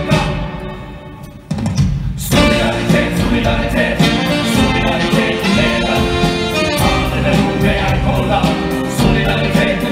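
Live stage-musical number: a singing ensemble with band accompaniment. The music thins out about a second in and comes back in full about two seconds in.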